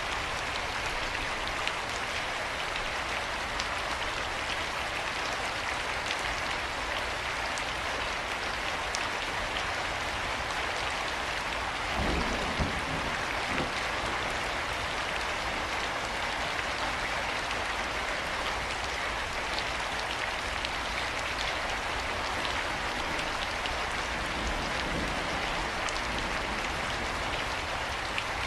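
Steady rain falling, an even hiss with scattered sharper drop ticks. About halfway through there is a brief deeper rumble of a few seconds.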